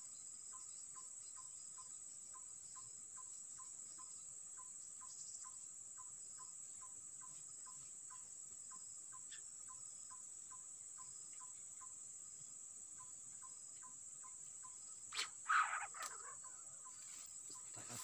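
Faint steady high-pitched insect buzz with a regular chirp about twice a second, typical of crickets. About three seconds before the end, a brief louder falling sound cuts in.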